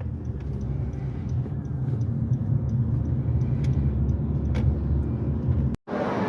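Steady low rumble of a moving vehicle heard from inside, with faint scattered ticks and rattles.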